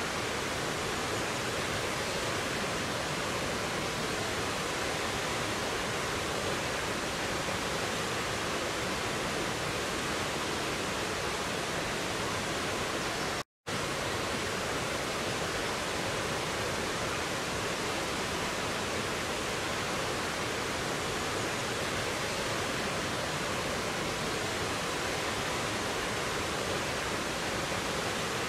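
Water of a rocky stream cascading over boulders and a small waterfall: a steady, even rush that cuts out for a split second about halfway through.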